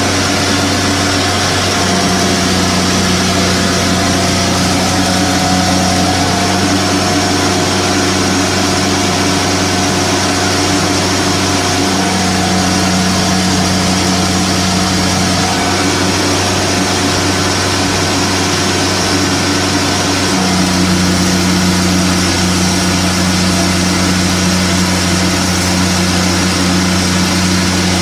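Diesel engine of an Airman PDW280 engine-driven welding generator running steadily under load while it powers a stick-welding arc, with the arc's hiss and crackle over it. A deeper hum comes in about two seconds in and drops out and returns a few times as the welding load changes.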